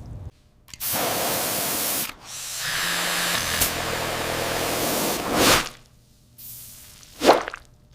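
Steady hissing spray in two long bursts, the first over a second long and the second about three seconds, then a short sharp swish near the end.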